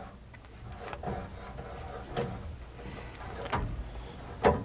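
Tubing cutter being turned around a copper cold-water supply pipe, its wheel scoring the copper with faint, uneven scraping.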